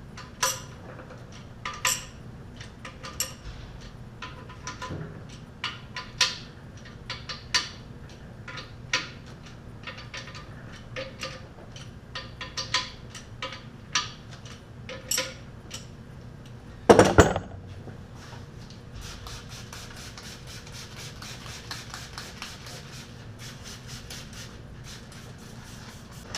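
Metal tools clinking and knocking against a cast-iron small-block Chevy engine block and its bolted-on pressure-test plates, in scattered sharp strikes with a ring. About seventeen seconds in comes one short loud burst, then a fast, even run of fine clicks.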